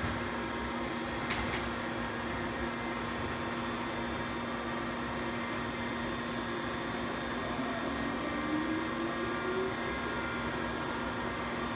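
1995 Mazak VTC-16B vertical machining center running, a steady machine hum with several constant tones while its spindle head traverses slowly. A light click about a second in, and a rising whine about two-thirds of the way through.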